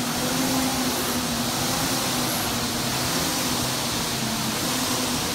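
Air-resistance rowing machines' fan flywheels whirring as two rowers pull hard, a steady rushing noise with a low hum underneath.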